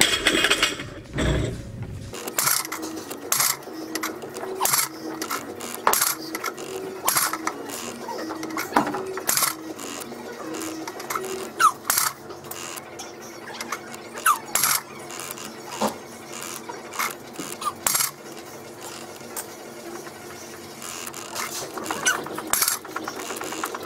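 Loaded barbell and iron plates in use during a heavy deadlift set, giving irregular sharp metallic clicks, knocks and rattles. A heavy low rumble fills the first two seconds.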